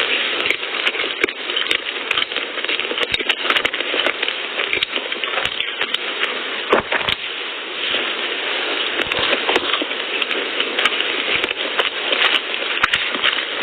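Close-miked eating sounds: wet chewing, mouth smacks and clicks while eating soft cream-filled pastries, with a steady crackle.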